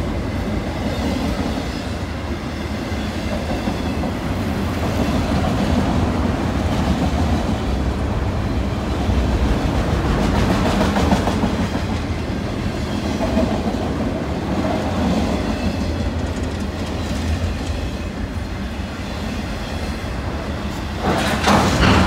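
Freight train of autorack cars rolling past, a continuous rumble with wheels clattering over the rail joints. The noise swells about ten seconds in, and there is a brief louder burst of clatter near the end.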